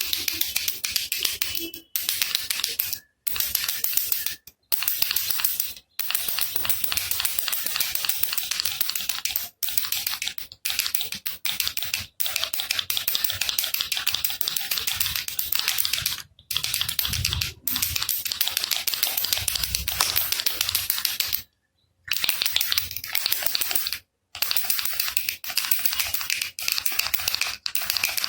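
Baby rattle shaken rapidly, its beads rattling in a dense stream of clicks, in stretches of one to four seconds broken by brief silences.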